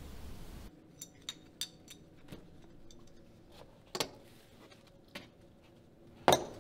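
Poker chips clicking as they are picked up, stacked and set down on the tabletop during a card game: a dozen or so sharp separate clicks, scattered irregularly, with the loudest near the end.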